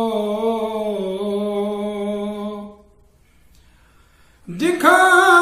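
A solo male voice with no accompaniment, reciting an Urdu manqabat. It holds the last note of a line for about two and a half seconds, then stops. After a pause of nearly two seconds it starts the next line near the end.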